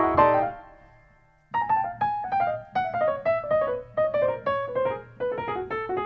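Background piano music. A chord rings and fades away, then after a short pause a run of single notes follows at about three a second.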